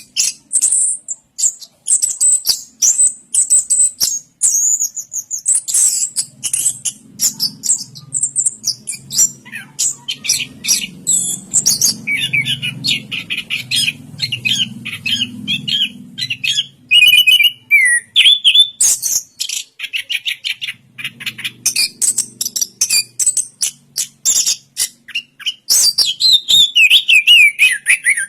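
Chestnut-capped thrush (anis kembang) singing a long, unbroken song of rapid, varied high chirps, trills and whistles, with falling whistled slides near the end.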